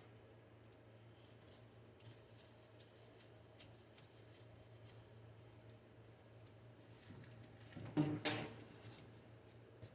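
Faint, scattered clicks of a hose clamp being tightened onto a heater hose, over a steady low hum. About eight seconds in, two louder knocks come in quick succession.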